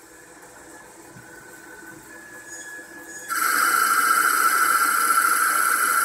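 A CNC-converted South Bend SB1001 lathe runs quietly with faint high tones. A little over three seconds in, the tool cuts into the spinning wooden workpiece, and a loud, steady, high-pitched cutting whine with hiss sets in suddenly.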